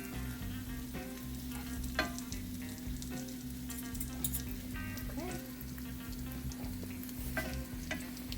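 Egg-battered slices of chocolate chip bread frying in oil in a pan: a steady sizzle with a few sharp spatter pops.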